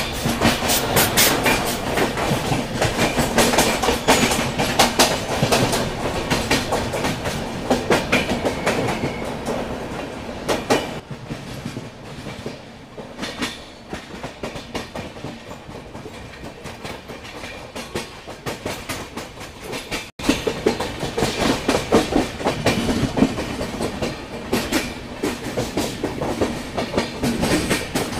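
Coach wheels of a fast-running Duronto Express clattering rapidly over rail joints and points, heard from the coach doorway. The clatter eases for several seconds in the middle, cuts out abruptly, then returns loud.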